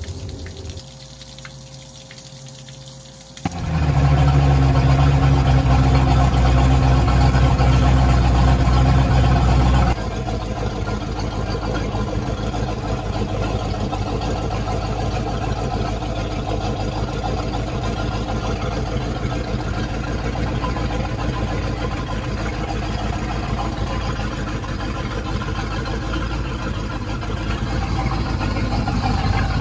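Sterndrive boat engine running at idle on fresh water fed from a jug, warming up until the thermostat opens before the switch to antifreeze. It becomes suddenly loud about three seconds in, as if starting up, and keeps a steady idle, a little quieter from about ten seconds in.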